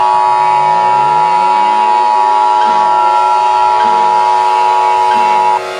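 Emergency Alert System attention signal: a loud, steady alarm tone near 1 kHz that starts suddenly and cuts off abruptly about five and a half seconds in. Fainter droning background music with slow rising sweeps runs underneath.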